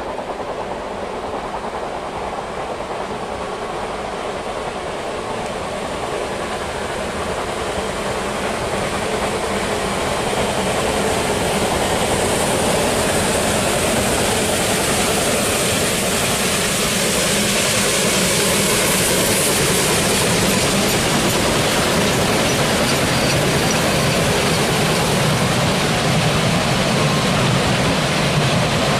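Narrow-gauge steam train approaching and passing at a level crossing. Its running noise grows louder over the first dozen seconds and then holds steady as the locomotive and green passenger coaches roll by.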